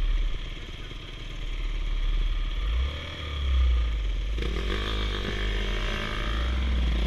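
Dirt bike engines idling, with one revving up and back down about four and a half seconds in.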